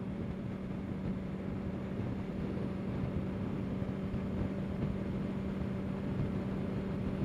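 Honda CBR650R's inline-four engine running at a steady cruising speed, its note holding one constant pitch over a steady rushing noise.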